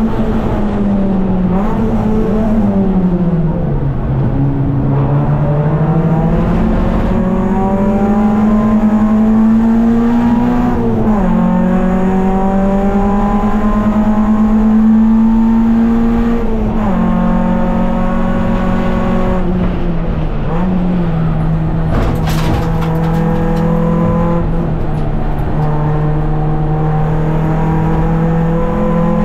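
Race car engine heard from inside the cabin, running hard throughout. Its pitch falls a couple of seconds in, then climbs steadily, dropping sharply several times along the way as gears change. A brief sharp knock sounds about two-thirds of the way through.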